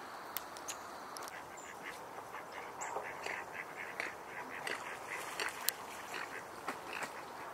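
Ducks quacking: many short calls in quick succession, starting about a second in, over a steady hiss, with a few sharp clicks among them.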